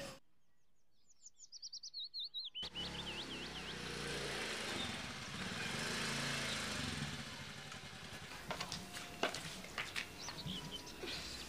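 Small songbird chirping a quick series of high, down-slurred notes, with a few more chirps near the end. A steady outdoor background hiss comes in abruptly after a couple of seconds.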